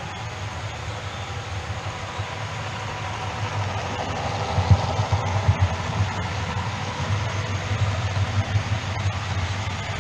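OO gauge model train of tank wagons running past on the track, a steady rumble of wheels and motor with a fast low pulsing, growing louder about four seconds in as the wagons pass close.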